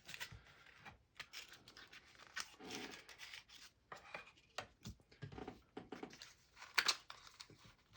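Quiet hand-handling of a Zippo lighter's packaging being opened: irregular tearing, scraping and rustling of paper and cardboard, with a few sharp clicks.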